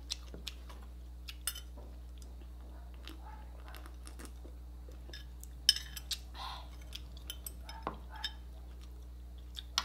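A metal spoon clinking and scraping against a small glass bowl in scattered light taps, the sharpest clink a little past halfway. Close-up sipping from the bowl falls in the middle.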